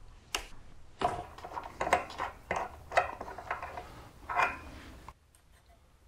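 Socket wrench working the bolts of a motorcycle's front brake caliper: a run of irregular metallic clicks and clinks, stopping about five seconds in.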